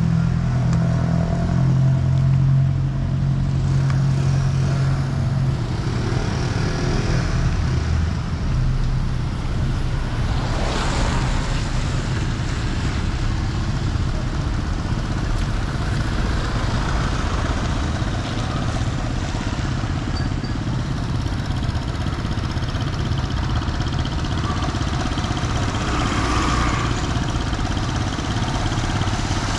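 Road traffic on a wet street: a steady rumble of engines, with a low engine drone for the first few seconds. Vehicles pass with a swelling tyre hiss, one about a third of the way in and another near the end.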